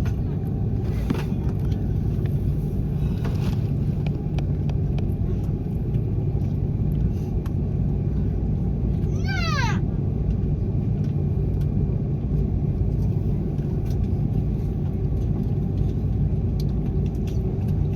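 Steady cabin rumble of an Airbus A330-300 with Rolls-Royce Trent 700 engines, as heard from a window seat in the rear cabin. About halfway through, a brief high squeal falls quickly in pitch.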